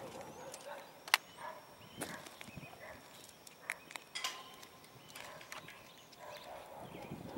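Quiet outdoor background with scattered light clicks and taps. The loudest is a sharp click about a second in, and there are a few faint short chirps.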